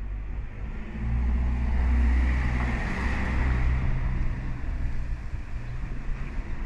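A car driving past, its engine rumble and tyre noise swelling about a second in, loudest around three seconds, then fading away.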